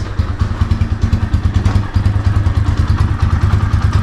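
Motorcycle engine idling, a steady, fast run of low exhaust pulses.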